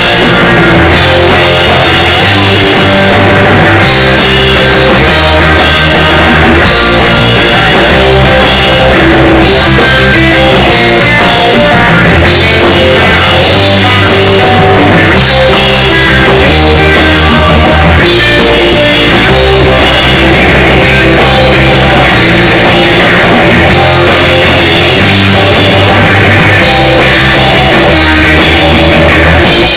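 Instrumental rock band playing live: electric guitar, bass and drum kit, loud and continuous, recorded on a phone's microphone.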